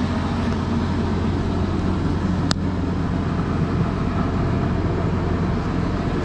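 Ford Thunderbird Super Coupe's supercharged 3.8 V6 idling steadily, with one sharp click about two and a half seconds in.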